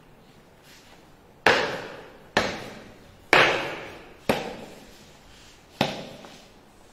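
A soldier's boots stamping in military marching steps on a hard floor: four stamps about a second apart, then a final halting stamp near the end. Each stamp echoes in the hard-walled room.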